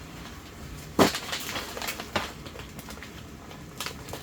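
Scattered light crackles and clicks, with one sharp knock about a second in.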